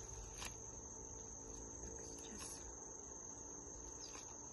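A steady, unbroken high insect trill from the surrounding greenery, with a few brief soft rustles of Bible pages being turned.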